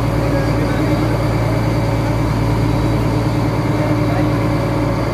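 A fishing trawler's engine running steadily under way, a constant even drone with no change in speed.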